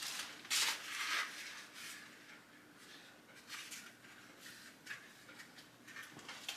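Faint, scattered rustles and light scrapes from a furnace air filter being handled and fitted, a few short ones spread through the stretch.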